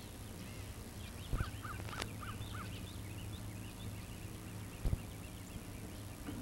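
Wild birds calling, including a run of five quick, identical call notes about a second and a half in, with scattered chirps around them over a low steady hum. A few dull knocks, the loudest about five seconds in.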